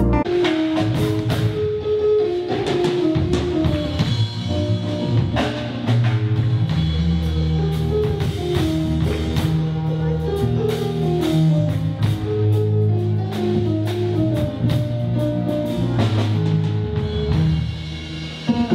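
Instrumental music: a drum kit keeping a steady beat under a bass line and a melody of held notes.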